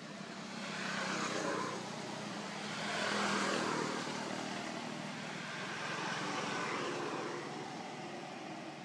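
Engine and tyre noise of road vehicles passing by, swelling and fading three times over a steady low hum.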